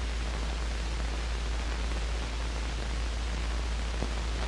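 Steady hiss and low hum of an old film soundtrack, with a faint click about four seconds in.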